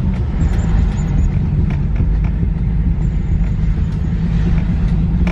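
Infiniti G37S rolling slowly with its aftermarket exhaust running, plus a little thumping sound from the driver's side wheel. The owner is pretty sure it is a badly worn wheel bearing.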